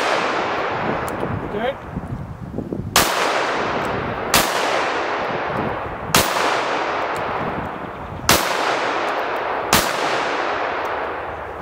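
Smith & Wesson .22 Magnum semi-auto pistol firing CCI Maxi-Mag rounds: five single shots at uneven intervals of about one and a half to two seconds, each sharp crack followed by a long fading echo. The pistol cycles normally through the rest of the magazine after a cleared failure to feed.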